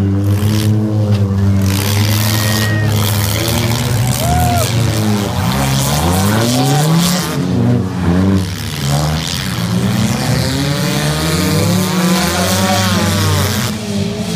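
Several figure-8 race cars' engines revving and easing off as they race around the track, their pitches rising and falling over one another.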